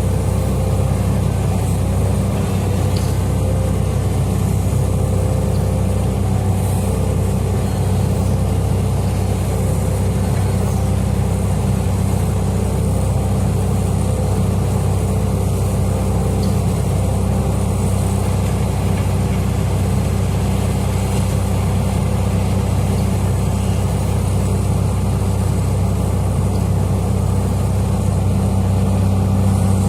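Heavy diesel mining machinery running steadily, a deep, even engine drone with no clear revving.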